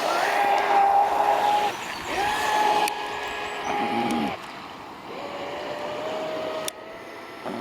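Traxxas Spartan RC boat's brushless electric motor whining at steady pitch. It drops away and comes back up as the throttle is eased and reapplied, then settles to a lower steady whine after about five seconds. There is a sharp click near the end.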